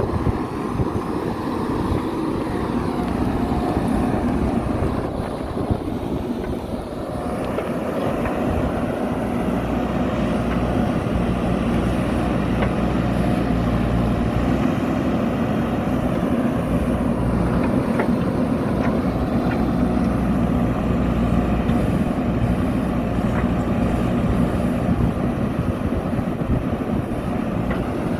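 A JCB backhoe loader's diesel engine running steadily, then revving higher under load about seven seconds in and holding there.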